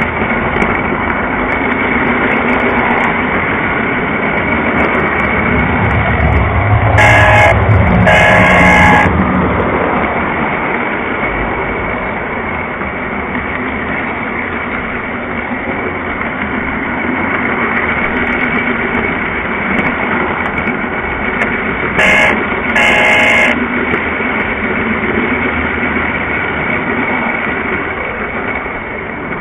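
Lionel O-gauge model train running on three-rail track, a steady hum and rumble of motor and wheels. Its horn sounds twice, each time a short blast followed by a longer one, about a quarter and again about three quarters of the way in.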